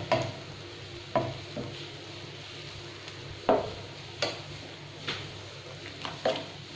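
A spatula stirring diced bottle gourd in water in a nonstick kadai, scraping the pan about half a dozen times, over a steady sizzle.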